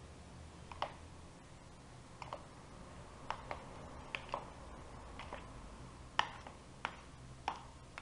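Metal spoon clinking against the side of a bowl while stirring a chunky diced filling: about a dozen sharp clicks at irregular intervals.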